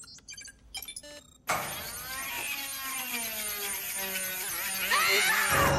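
A quick run of electronic beeps from a handheld control keypad, then about a second and a half in, a loud electronic sound effect of a surgical probe machine starts. It is dense, with many wavering pitches sliding downward, grows louder, swirls near the end and cuts off suddenly.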